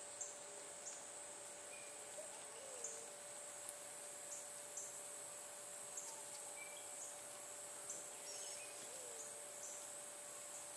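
An outdoor insect chorus, crickets trilling steadily at a high pitch, with short sharp high chirps recurring every half second to a second and a faint steady lower tone beneath.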